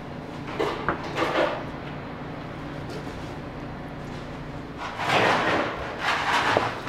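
Kitchen knife slicing through a raw pork loin on a plastic cutting board: a few soft strokes near the start, then two louder, longer cutting strokes in the second half, over a steady hum of kitchen equipment.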